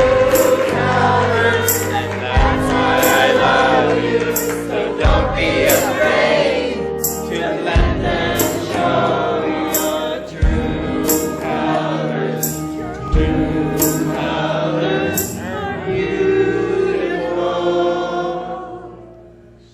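Music: a group of voices singing a song over bass and drums with a steady beat, fading out near the end.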